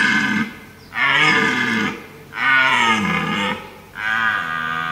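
Red deer stag roaring: a series of four bellows, each about a second long, coming about every second and a half.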